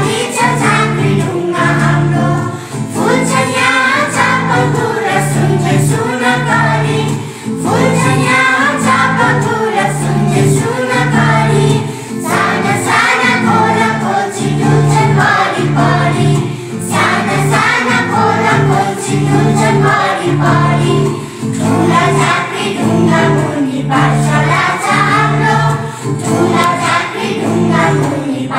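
A choir of young primary-school children singing a Nepali school song together in phrases, over a steady instrumental accompaniment.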